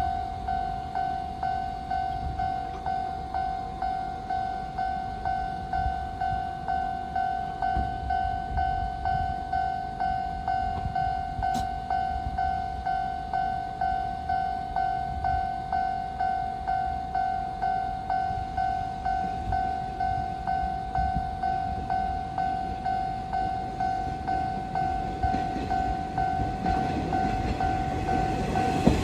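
Japanese railroad crossing warning bell ringing its steady, evenly repeating 'kan-kan' tone, signalling an approaching train. Near the end the rumble of the oncoming train grows beneath it.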